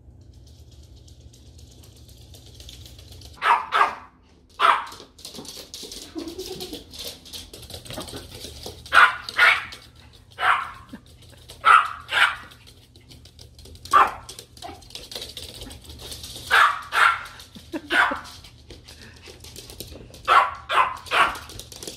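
A Morkie puppy (Maltese–Yorkshire terrier cross) barking in short, sharp yaps. The yaps come singly or in quick pairs and triples, about fifteen in all, starting a few seconds in.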